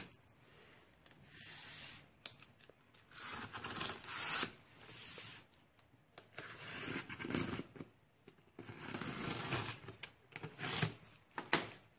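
Packing tape on a cardboard shipping box being torn and peeled open, in a series of short, irregular rips with hands scraping over the cardboard.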